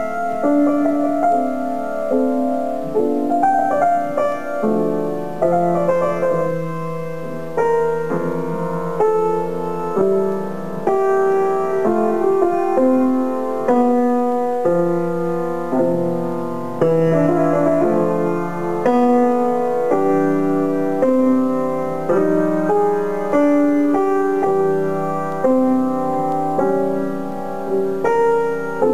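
Solo piano playing a melodic piece: a steady stream of notes and chords, each ringing and fading, with a new one every half second or so.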